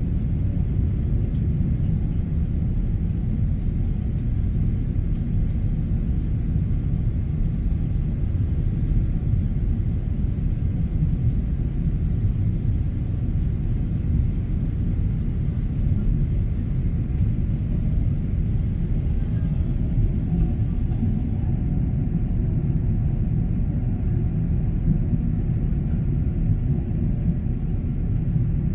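Steady low rumble of a Boeing 777-300's jet engines running, even in level throughout.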